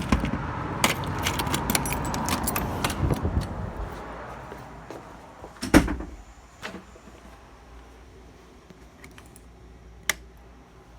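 Jingling, clattering handling noise that fades over the first few seconds, then one loud knock about six seconds in and a few lighter clicks.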